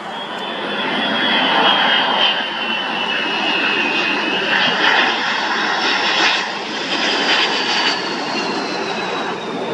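Boeing 757 cargo jet on final approach: its turbofan engines run with a loud rush and a high whine that slowly falls in pitch as the plane passes.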